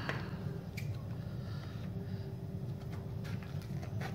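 Faint handling of a hard plastic blister pack, a few light clicks and crinkles, with scissors cutting into the plastic near the end, over a steady low hum.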